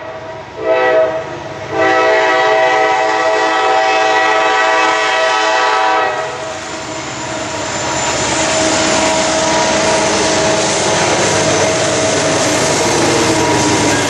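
Norfolk Southern diesel locomotive's air horn sounding a short blast and then a long one of about four seconds. After the horn stops, the locomotive's engine and the wheels on the rails grow louder as the train approaches and passes.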